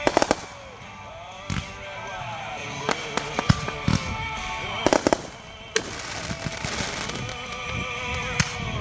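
Consumer fireworks going off: a quick cluster of sharp bangs right at the start, then single and paired reports scattered through, over background music with singing.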